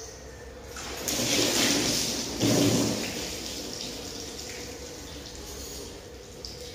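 Water thrown from a plastic bucket over a scooter, splashing onto it and the wet concrete floor. A rush of water starts about a second in, a heavier splash comes about two and a half seconds in, and then it dies away.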